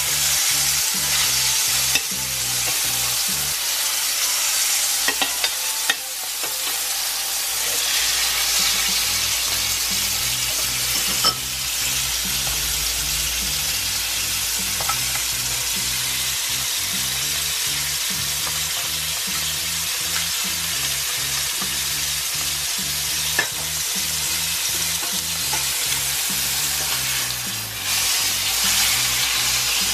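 Steak sizzling steadily as it pan-sears in butter with garlic and rosemary in a stainless steel frying pan, with a few sharp clicks of a utensil or hands against the pan.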